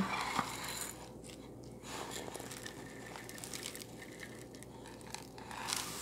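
Stainless steel measuring cup scooping cracked corn from an enamel bowl and pouring it into a mixing bowl of birdseed: faint scraping and crunching of dry grain, a little louder near the end as a cupful pours in.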